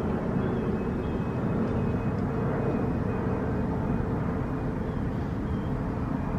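Steady low outdoor rumble with a faint hum, even in level throughout.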